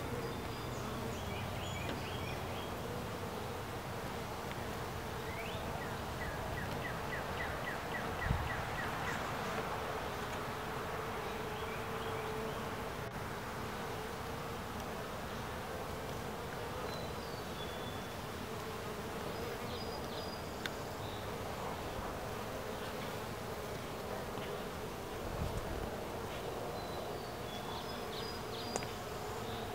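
Honeybee colony humming steadily in an open hive, worker bees buzzing over the frame tops.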